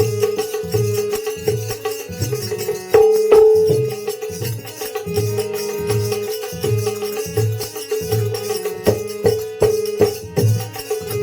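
Instrumental break in live Gujarati bhajan music: a steady held tone over a regular drum beat, about three beats every two seconds, with sharper percussion strikes. A loud strike comes about three seconds in.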